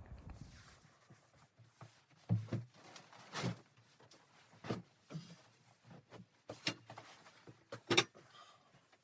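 Irregular knocks and clicks, a handful of sharper ones spaced about a second apart, over a faint background.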